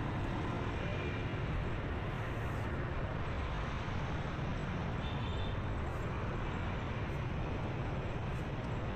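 Steady drone of riding a motorbike through busy street traffic: engine and road noise with passing scooters, even throughout with no distinct events.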